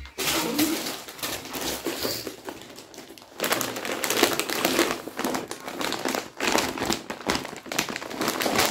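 A clear plastic bag full of packaged clear stamps crinkling and rustling as it is gripped and lifted out of a cardboard box. The rustling is busier in the second half.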